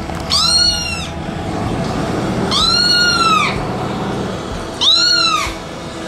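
Recorded kitten meows played back through a speaker to lure the mother cat: three separate high meows, each rising then falling in pitch and lasting under a second.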